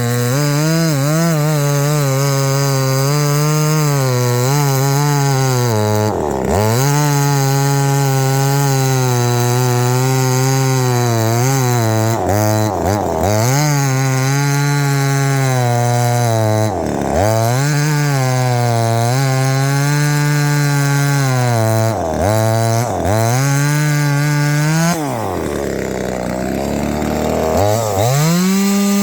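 Small two-stroke top-handle chainsaw cutting wood at high revs. Its engine pitch drops sharply several times as it bogs under the load of the cut. Near the end it sinks almost to a stall before revving back up, a sign that the saw cannot take much pressure on the bar.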